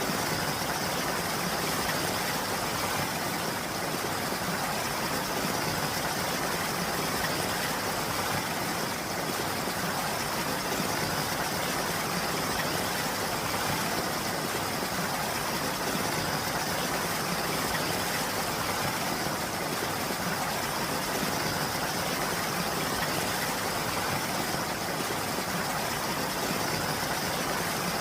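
Rain falling steadily, an even continuous hiss.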